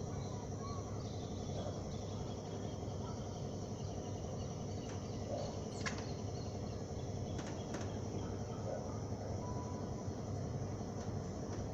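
Outdoor evening ambience: a steady low rumble of distant traffic under a faint, steady high hum like insects, with a few brief high chirps about six and seven and a half seconds in.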